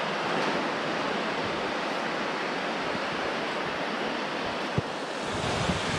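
Surf washing in over a sandy beach: a steady hiss of small breaking waves and foam running up the wet sand.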